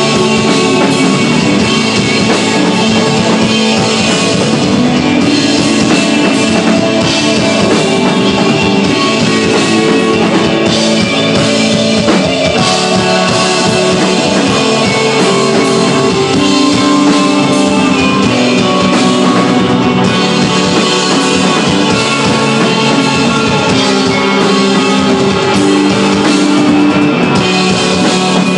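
Live desert rock band playing loudly: electric guitar and drum kit, with dense, sustained chords over a steady beat.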